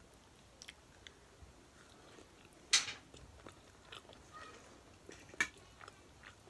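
A person chewing a mouthful of masala macaroni, with faint small clicks and two sharper clicks, one about three seconds in and one about five seconds in.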